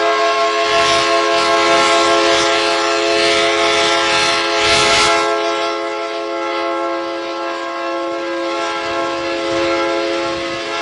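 Train horn sounding one long, steady chord over the rushing noise of the train, which is loudest about five seconds in.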